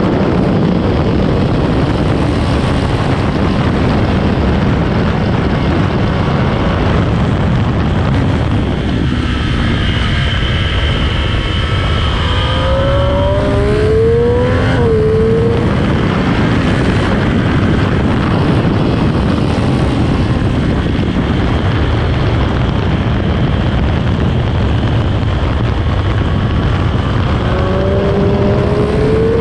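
Sport motorcycle on its stock exhaust, ridden hard on a track, with a loud rush of wind and engine noise. The engine note climbs under acceleration about halfway through and again near the end.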